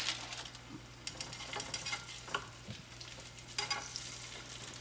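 Sausage frying in a little hot oil in a frying pan, sizzling steadily, with a louder burst right at the start and a few sharper clicks through it.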